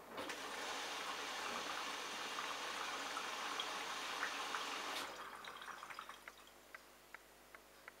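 Rinse water rushing into a Bosch Logixx WAS32461 front-loading washing machine during the first rinse of a cottons cycle, with a sudsy drum. The inlet valve shuts off abruptly about five seconds in, leaving faint regular ticks about twice a second.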